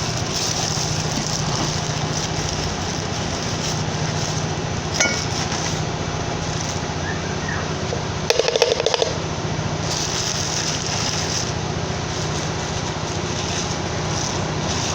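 Kitchenware clinking: one light clink about five seconds in, and a quick run of sharp taps and clinks a little past the middle, as a cup knocks against a blender jar while ingredients go in. A steady background hum runs under it.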